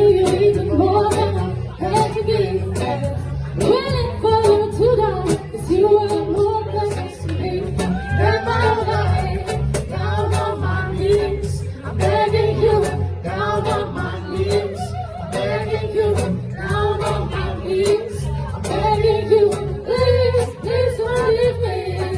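A live band playing, with a voice singing over bass and drums.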